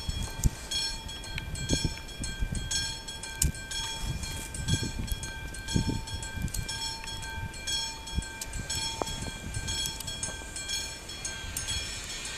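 An approaching electric locomotive heard from a distance: a steady high whine over an irregular low rumble, with scattered clicks.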